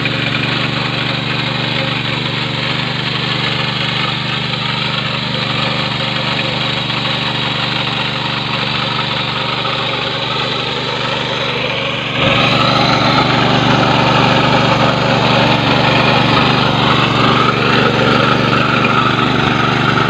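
Small single-cylinder engine of a 7 hp mini power tiller running under load as its rotary tines churn soil, a steady drone. About two-thirds of the way through it suddenly becomes louder and brighter.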